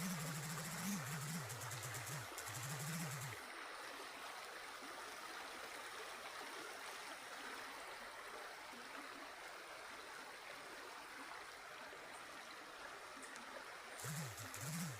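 Spring-fed mountain stream running steadily over its bed, a continuous rushing of water. A low voice is heard for the first three seconds or so and briefly again near the end.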